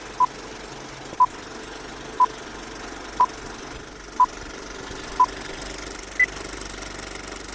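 Film-leader countdown beeps: a short beep once a second, six times, then a seventh, higher-pitched beep, over a steady mechanical rattle and hiss.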